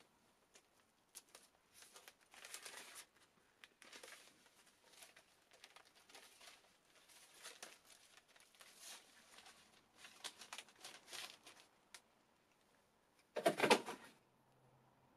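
Diffuser cloth of an umbrella softbox rustling and crinkling in short, irregular bursts as it is handled and stretched over the frame, with one louder rustle about thirteen seconds in.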